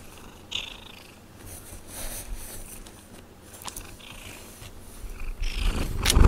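Domestic cat purring right at the microphone, with rustling and small clicks as its fur brushes against the camera, and a loud low thump just before the end.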